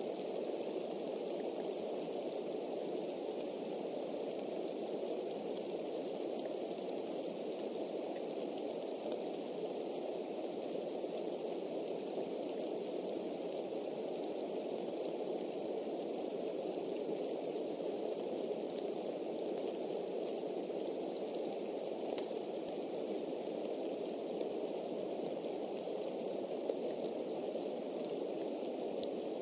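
Steady rain falling on a bald eagle's stick nest, an even hiss with a few sharp ticks of single drops, the clearest about three-quarters of the way in.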